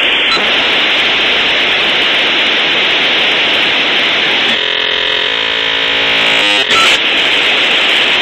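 Dial-up modem handshake over a telephone line, negotiating a connection: a loud, steady hiss like static, with a stretch of many steady tones layered over it about halfway through.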